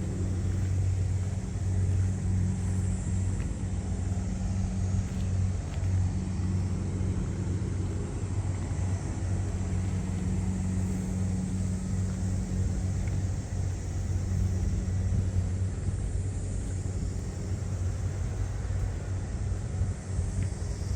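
Rice combine harvester running steadily, its engine giving a constant low drone.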